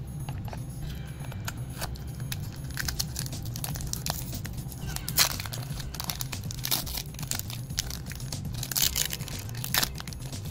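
Foil Pokémon booster-pack wrapper crinkling and crackling as it is handled and torn open, with the sharpest crackles about five seconds in and again near the end.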